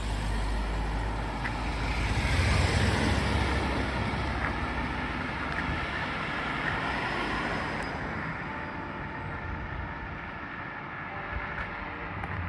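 A road vehicle passing by: its rumble and tyre hiss swell over the first few seconds, then fade away. Faint church bell tones begin to come through near the end.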